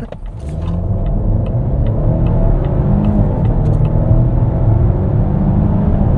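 Volvo B6 2.0-litre four-cylinder engine under full-throttle acceleration from a standstill, heard inside the cabin, revs climbing as the car gathers speed.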